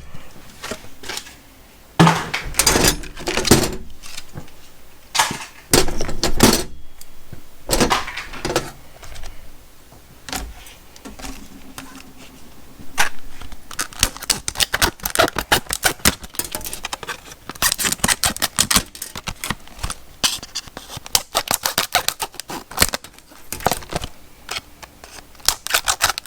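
Irregular clicking and clattering of oscillating multi-tool blades and their packaging being handled, with bursts of rattling small metal pieces coming and going.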